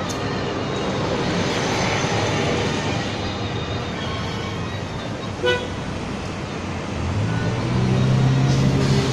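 Urban road traffic noise, with a short sharp beep like a horn toot about halfway through. A vehicle engine's low hum swells up over the last couple of seconds.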